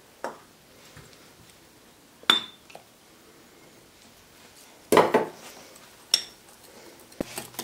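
A wire whisk and measuring cups clinking against a glass mixing bowl as flour and milk go into crepe batter. There are three short clinks, about two, five and six seconds in, the first and last with a brief ring.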